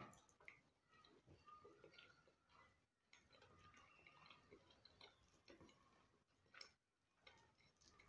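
Faint chewing of fried blue whiting, with small mouth clicks and lip smacks scattered irregularly.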